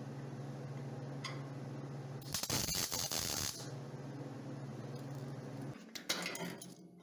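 A MIG plug weld on sheet-metal floor pan: about a second and a half of crackling hiss roughly two seconds in, over a steady low hum that stops near the end, followed by a couple of short bursts.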